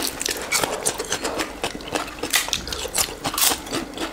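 Close-up chewing and biting of chicken wings: a rapid, irregular run of mouth clicks and crunches.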